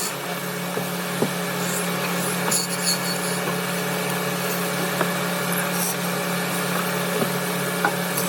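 Wood lathe running steadily with a low motor hum while a turning tool cuts the spinning wood, making a continuous scraping hiss with a few small knocks.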